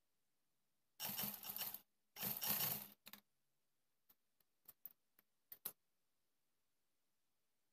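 Classic black sewing machine stitching in two short, fast bursts about a second in, followed by a handful of light clicks.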